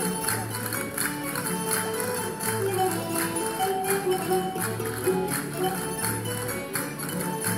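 Spanish folk dance music with a melody over a steady percussive beat and a pulsing bass.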